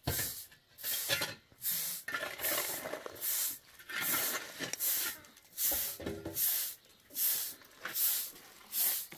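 Short straw hand broom sweeping dusty ground: a steady run of brisk swishes, about one and a half strokes a second.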